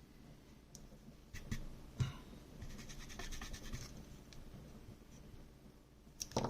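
Small hand tools working on a circuit board: a few light clicks and taps, a stretch of fine scratching, then more clicks near the end.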